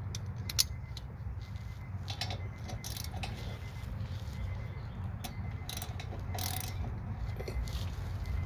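Hand tools being handled on a car's brake and wheel hub: scattered metallic clicks and clinks of a socket and ratchet, with one sharper click about half a second in, over a steady low rumble.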